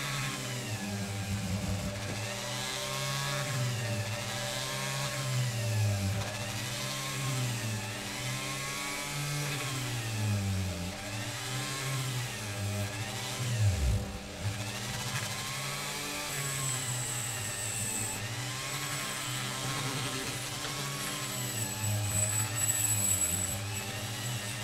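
Power tool's rotary wire brush scrubbing rust and old paint off a diecast metal casting, the motor's pitch repeatedly falling and rising again every second or two.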